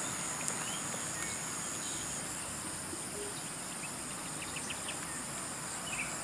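Steady high-pitched drone of insects, with a few faint short chirps.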